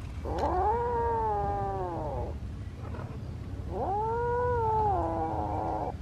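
Kitten meowing: two long, drawn-out calls, each rising and then falling in pitch, about two seconds apiece. It is the plaintive meow of a kitten asking for something.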